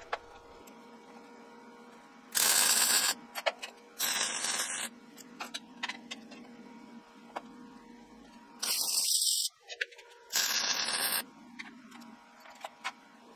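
Four short bursts of hiss, each lasting under a second, with light clicks and rattles between them over a low steady hum.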